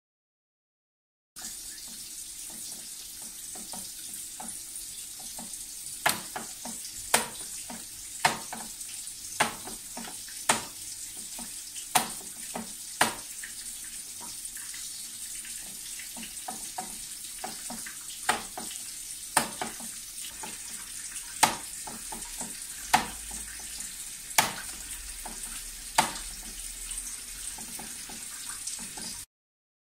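Wet slaps and squelches of bare hands kneading minced chicken and cheese, about one a second, over a steady hiss.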